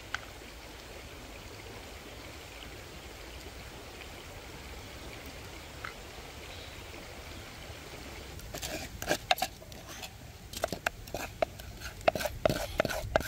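A steady background hiss, then from about two-thirds of the way in a quick string of sharp knocks and taps with a short metallic ring: a wooden bowl and utensil striking a metal basin as chopped chili is scraped into it.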